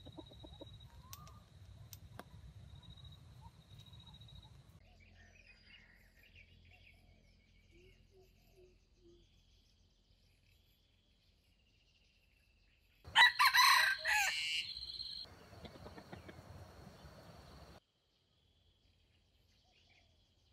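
A red junglefowl rooster crows once, loud and lasting about two seconds, about 13 seconds in. Before it there is only a faint steady high whine and a few small chirps; after it, a few seconds of rustling noise end abruptly.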